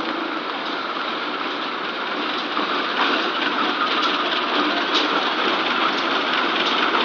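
Diesel locomotive hauling a passenger train, running toward and past below, a steady running noise that grows louder from about halfway through as it draws near.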